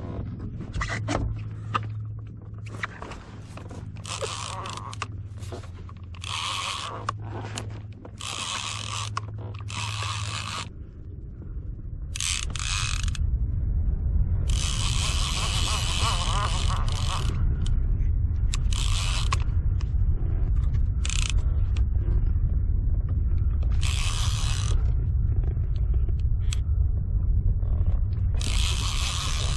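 Mechanical ratcheting clicks in irregular spurts, from a fraction of a second to about three seconds long, over a steady low rumble that grows stronger partway through.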